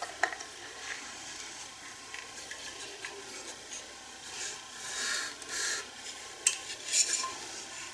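Wooden chair parts and their fittings being handled and rubbed together during assembly: a continuous scraping and rubbing, with a few louder scrapes in the middle and sharp clicks near the end.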